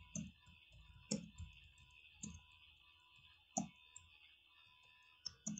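Faint computer keyboard typing: a handful of irregular, separate key clicks over a steady faint hiss.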